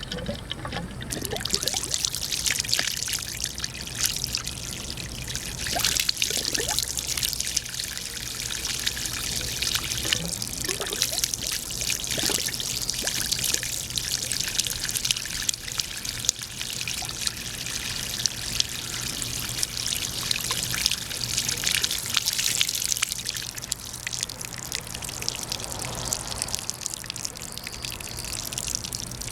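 Water being poured into a heat pump air handler's condensate drain fitting to flush out the trap, splashing and trickling steadily from about a second in.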